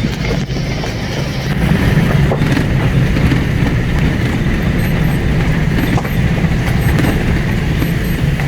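A vehicle's engine and road noise while driving, a steady low drone.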